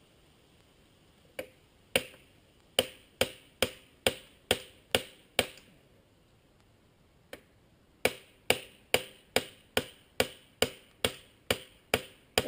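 Metal-on-metal hammering on a motorcycle drive chain that has come off and jammed up by the subframe bolt, being knocked free. Sharp, ringing blows about two a second, in two runs with a short pause between them.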